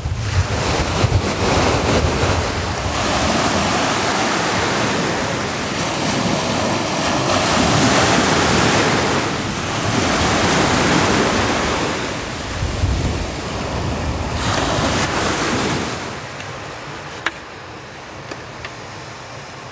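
Ocean surf breaking and washing up a beach, swelling and ebbing every few seconds, with wind buffeting the microphone. Near the end the surf gives way to a much quieter stretch with a sharp tap and a few light ticks of a knife slicing an orange on a wooden cutting board.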